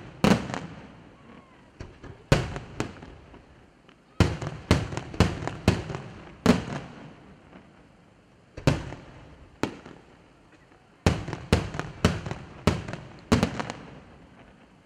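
Aerial firework shells bursting overhead in sharp bangs, each with a trailing echo. The bangs come in quick volleys of three to seven, with lulls of a second or two between them.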